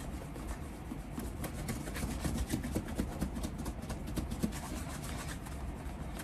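Cloth with leather cleaner rubbed briskly over a leather shoe's upper, a continuous scratchy rubbing of quick short strokes. The cleaner is being worked in and wiped off to lift old cream and wax from the leather before the cream goes on.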